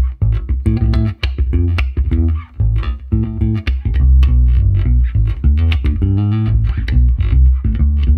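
Five-string electric bass played fingerstyle: a funky groove of short, punchy low notes that change quickly, each with a clicky attack.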